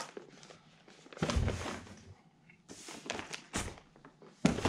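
Cardboard firework-cake boxes being handled: several rustling, scraping stretches as a cake box slides out of its shipping carton and is stood on the table, with a knock near the end as it is set down.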